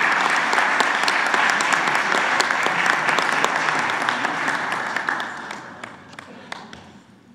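Audience applauding, a dense patter of many hands clapping that fades away over the last couple of seconds.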